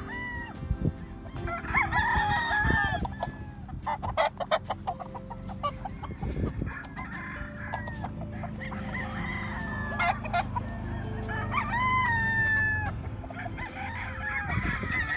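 Several roosters crowing one over another, some crows long and falling in pitch at the end, with clucking between them. A quick run of sharp clicks comes about four seconds in.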